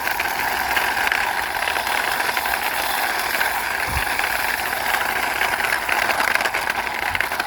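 Plastic toy car pushed along by hand, its small wheels rolling over a hard surface with a steady rattling whir.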